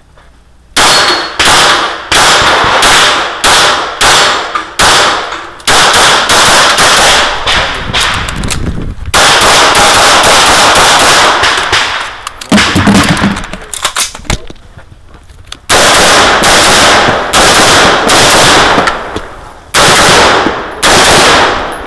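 Rapid strings of 9mm pistol shots from a Sig P226, fired close to the ears in quick runs with short breaks between target groups. After a brief pause near the two-thirds mark, rapid fire from an AR-15-type semi-automatic rifle follows.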